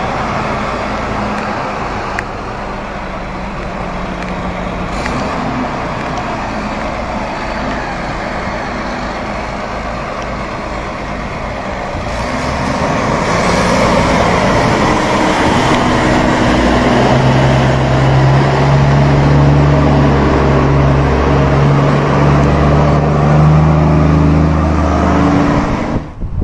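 Heavy diesel engines of a wheel loader and an Iveco semi truck running under load as the loader tows the truck up a sandy slope on a cable. The sound grows louder about halfway through and settles into a steady deep drone.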